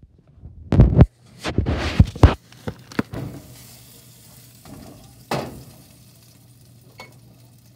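Quesadillas sizzling in a frying pan, with a run of loud bumps and knocks from the phone being handled in the first two seconds or so, a few lighter knocks after, and one more about five seconds in.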